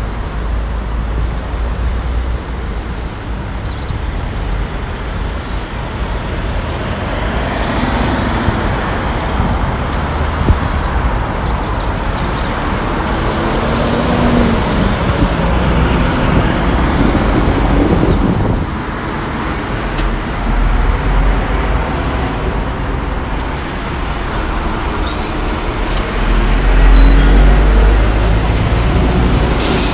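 Road traffic passing close by: cars and trucks driving past with tyre and engine noise. A heavier lorry rumble is loudest near the end.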